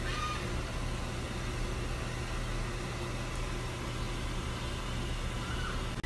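A steady low hum with an even hiss, like a running vehicle heard from inside, and a monkey's brief faint squeak right at the start.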